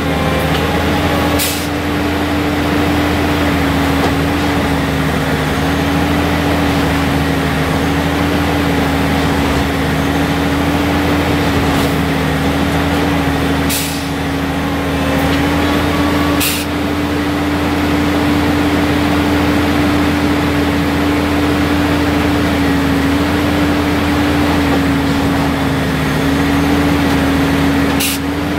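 Heavy rail track maintenance machine running steadily: a deep engine drone with a constant whine over it, broken by a few sharp metallic clanks.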